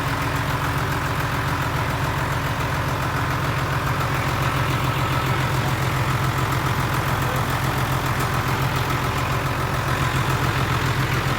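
Fire truck's engine idling steadily, a loud even rumble with a fast regular pulse.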